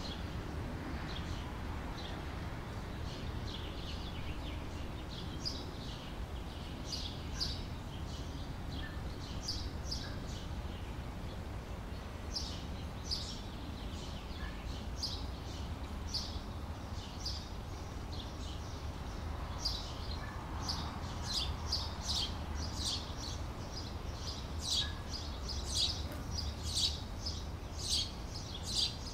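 Small birds chirping, short high calls again and again, becoming more frequent and louder toward the end, over a steady low background rumble.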